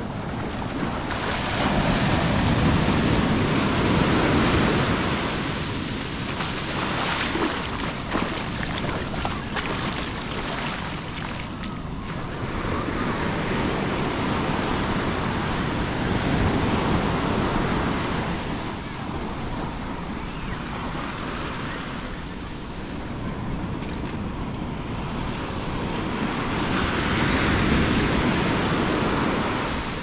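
Atlantic ocean surf breaking and washing up a sandy beach: a steady rush of foaming water that swells and fades as each wave comes in, with three louder surges.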